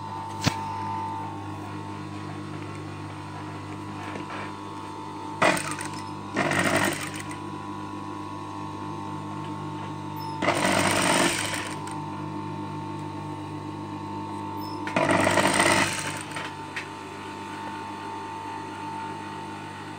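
Sewing machine stitching through thick fabric in three short runs of about a second each, over a steady background hum, with a few sharp clicks between runs.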